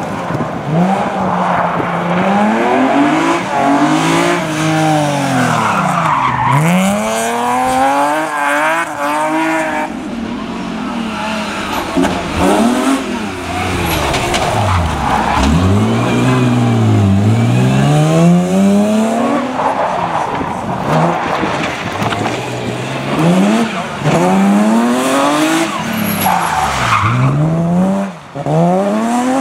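Rally car engines revving hard, their pitch climbing and dropping again and again as the cars brake, shift and accelerate through the stage, with tyres squealing.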